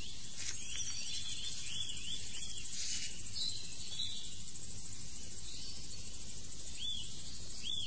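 Crickets chirping in a steady high trill, with scattered short high chirps over it: a night-time outdoor ambience.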